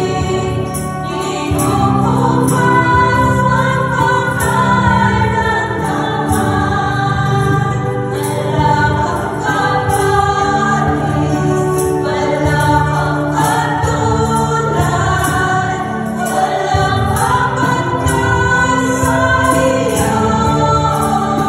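A group of voices sings a praise song into microphones over electronic keyboard accompaniment with a steady beat, played through a sound system.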